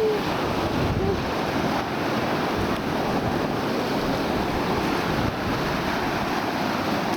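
Steady wind buffeting the microphone over a continuous wash of sea surf.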